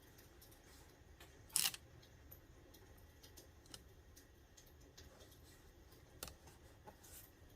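Quiet sticker-and-paper handling on a Traveler's Notebook: scattered small ticks and clicks, with a short scratchy rustle about a second and a half in and two softer ones near the end.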